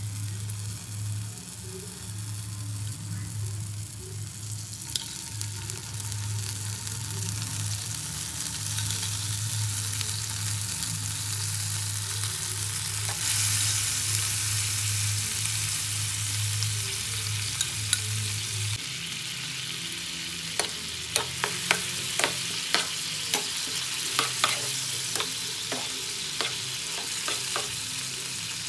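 Chopped vegetables sizzling in oil in a non-stick frying pan. The sizzle gets louder about halfway through, once flaked meat is in the pan. In the last third a metal spoon stirs the food, clicking and scraping against the pan.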